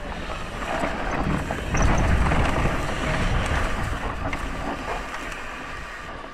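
Wind rushing over a helmet-mounted action camera's microphone while a downhill mountain bike's tyres roll and crunch over loose dirt and rock, with small scattered clicks. It gets louder about two seconds in as the bike picks up speed, then eases off.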